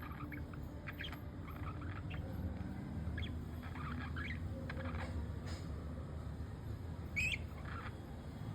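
Budgerigars chattering softly, with short chirps scattered through and one louder chirp about seven seconds in, over a steady low hum.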